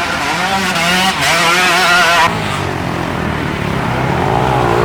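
Youth racing ATV engines revving, the pitch wavering up and down for the first two seconds, then running steadier and lower.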